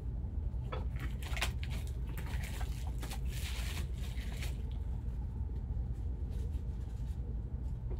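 Crinkling and rustling of the plastic wrapper as a sealed trading-card box is unwrapped and its cardboard lid handled. Short rustles and soft clicks come through, with a longer hissy crinkle about three to four seconds in, over a steady low hum.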